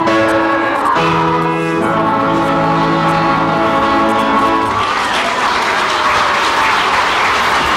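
Live music closing a song on held chords, then audience applause breaking out about five seconds in.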